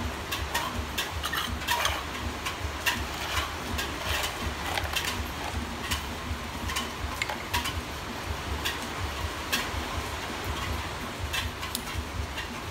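Irregular light clicks and taps of small plastic toy cookware (pots, lid, whisk and utensils) being handled and knocked together, over a steady low rumble.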